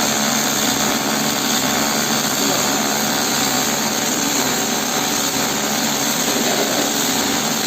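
Automatic overlay welding machine cladding copper onto the inner wall of a hydraulic cylinder barrel: a steady, even hissing noise from the welding arc, with no breaks.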